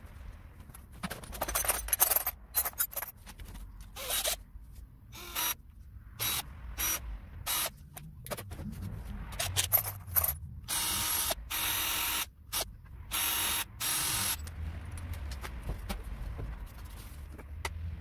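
Hands handling tools and speaker parts: clinking and clatter of metal drill bits and sockets being rummaged in a toolbox, with scraping and rustling, plus a few short rushes of hissing noise, each about a second long, past the middle.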